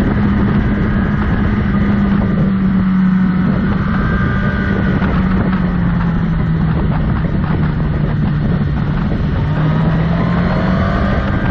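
Motorcycle engine running while riding, with wind rushing over the microphone. The engine's pitch sinks a little through the middle and rises again near the end.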